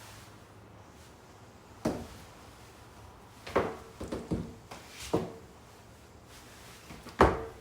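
A handful of short rustles and knocks, about six spread through with quiet between, the loudest near the end: clothes and hangers being handled.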